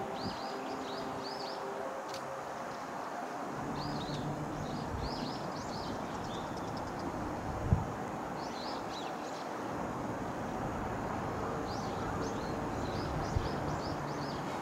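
Small birds chirping in short repeated bursts over a steady low rumble, with one sharp knock a little before the middle.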